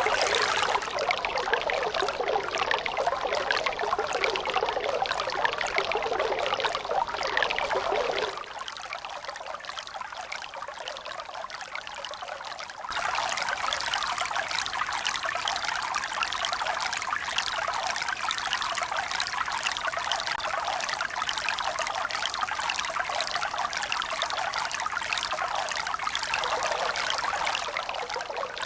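Steady running water, trickling and pouring. It turns abruptly quieter about eight seconds in and comes back up just as suddenly about five seconds later.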